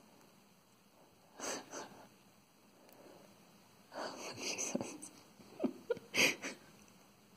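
Breathy puffs of air close to the microphone, in three short clusters: about a second and a half in, between four and five seconds, and around six seconds.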